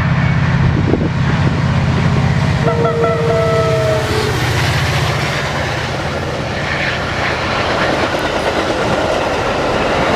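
Train going by close: a diesel locomotive's engine drone, a short horn honk of several notes about two and a half seconds in, then the steady rumble and clatter of the cars passing.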